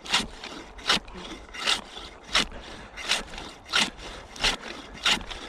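Homemade ice saw cutting through ice in steady hand strokes, each stroke a rasping scrape, about eight of them at roughly one every 0.7 seconds.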